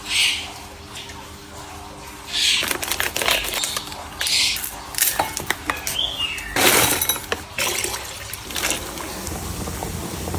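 Water running and splashing in several short spells, with a few sharp knocks between them.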